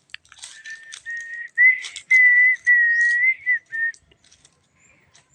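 A person whistling a short run of about six clear notes held near one pitch, some rising slightly, stopping about four seconds in.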